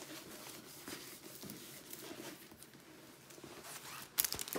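Faint rustling and soft crackling of a rolled diamond painting canvas being rolled backwards on a cloth-covered table to flatten it. About four seconds in comes a louder, sharper crackle as the canvas is unrolled and laid flat.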